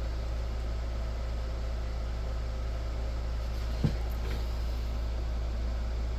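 Steady low electrical hum with even hiss, and a single sharp click about four seconds in.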